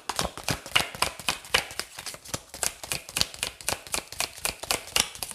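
Tarot cards being shuffled by hand: a quick, continuous run of small card clicks and slaps, several a second.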